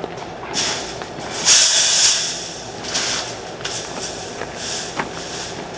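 Sheets of welded-wire concrete mesh scraping and rattling as they are handled and moved, with a loud drawn-out scrape about a second and a half in and a sharp metallic click near the end.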